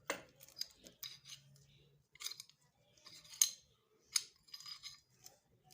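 Metal parts of a Zigana Sport 9mm pistol clicking and sliding as it is handled and worked on by hand: about nine sharp clicks and short scrapes at uneven intervals, the loudest about three and a half seconds in.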